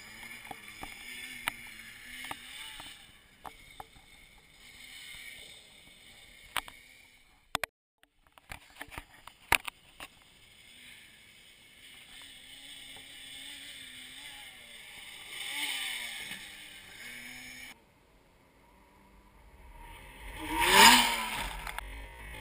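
Quad bike (ATV) engine revving up and down as it rides a dirt track, faint with distance, with a run of sharp clicks midway. Near the end the quad comes straight at the microphone, its engine rising quickly to a loud peak as it climbs over the dirt crest.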